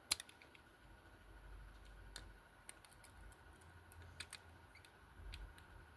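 Faint, irregular metallic clicks from rigid handcuffs being handled and worked open, over a low rumble of handling noise.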